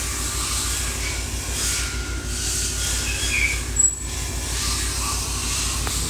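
Machine-shop background noise: a steady low hum of running equipment with hiss and thin high squeaks coming and going, and a brief sharper squeak about four seconds in.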